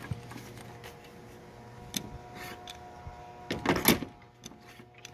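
Clicks and a louder rattling clatter about three and a half seconds in, from an AR-15 rifle and its plastic magazine-well wall mount being handled.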